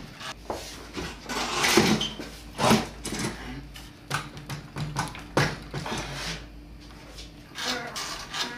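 Wooden boards and slats knocking and rubbing as they are grabbed and shaken, with a few sharp knocks among irregular clatter.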